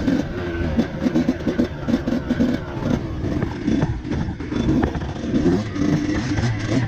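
Dirt bike engine revving in short, uneven throttle bursts, picking its way over rocks with some clatter.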